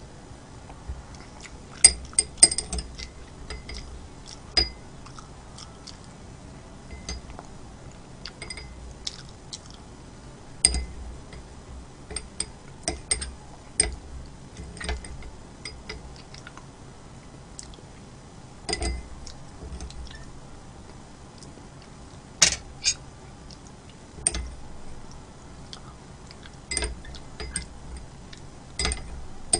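Close-miked eating sounds: utensils clinking against dishes amid chewing, with irregular sharp clicks, the loudest about two seconds in and again past twenty seconds.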